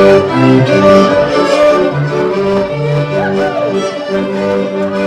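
Patriotic Latvian folk music playing, with long held notes under a moving melody.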